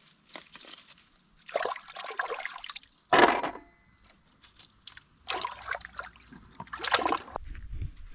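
Water splashing and sloshing in several short bursts, the loudest a sudden splash about three seconds in.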